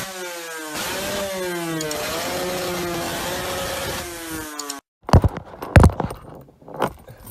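Channel intro sound effect: a pitched sound with several tones that slides down, then wavers, for about five seconds and cuts off suddenly. After a short gap come a few sharp knocks and thumps from someone moving about at an open car door.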